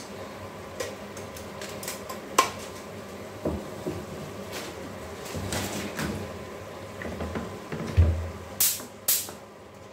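Sauce simmering in a pan with a soft steady sizzle, while pots and kitchen utensils are handled with scattered clicks and knocks. A dull thump comes about eight seconds in, followed by two sharp knocks.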